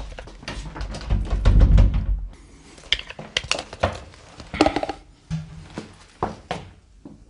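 A door being worked by its round knob: the knob turned and rattled and the door shaken in its frame, a dense run of rattles and thumps for about two seconds, then scattered clicks and knocks.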